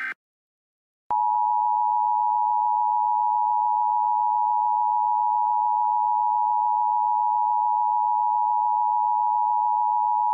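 Emergency Alert System attention signal: a loud, steady two-tone alarm tone that starts about a second in, just after the tail of a digital SAME header burst ends.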